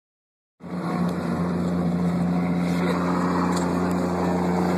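Military cargo truck driving: a steady low engine drone with road and wind rush, heard from the open cargo bed, starting about half a second in.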